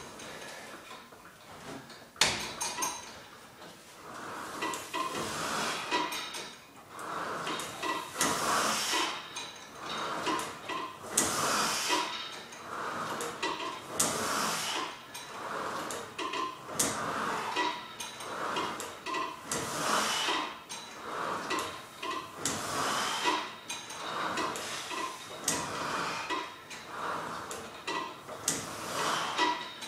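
Universal weight machine's weight stack and cable pulleys clattering and running through repeated rowing-style pulls on a rowing slide, in a steady rhythm of about one stroke every three seconds.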